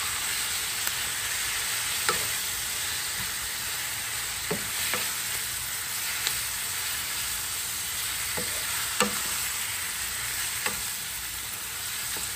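Raw marinated pork pieces sizzling in hot oil with onions and garlic, stirred with a wooden spatula that knocks and scrapes against the ceramic-coated frying pan every second or two.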